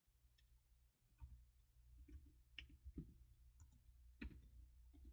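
Faint, irregular clicks of typing on a computer keyboard, over a low electrical hum.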